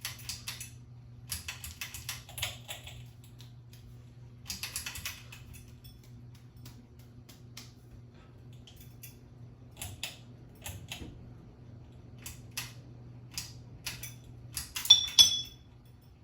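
Irregular light clicks and taps, a few at a time, with sharper, ringing metallic clicks near the end, over a steady low hum.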